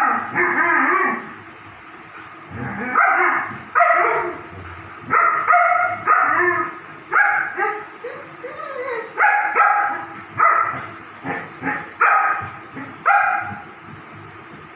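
German shepherds barking in play: about a dozen loud barks and yips at irregular intervals, stopping a little before the end.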